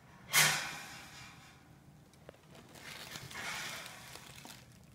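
Handling noise on the camera as it is reached for and switched off: a sudden hiss-like burst near the start that fades over about a second, a small click, then soft rustling against the device.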